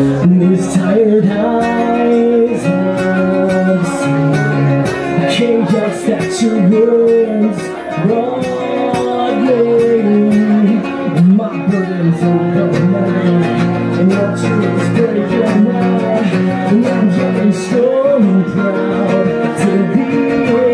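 Live acoustic band music: a strummed acoustic guitar with a man singing over it.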